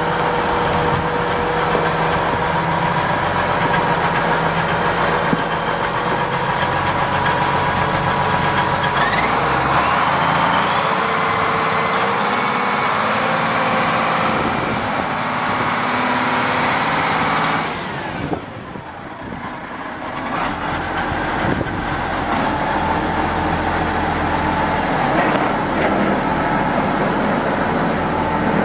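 1982 Case 4490 tractor's turbocharged six-cylinder diesel running as the tractor is driven slowly around the yard. The pitch rises about nine seconds in. The engine drops back sharply for a couple of seconds about two-thirds of the way through, then picks up again.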